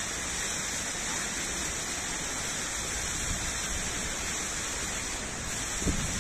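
Park fountain water splashing in a steady hiss, with a low rumble coming in near the end.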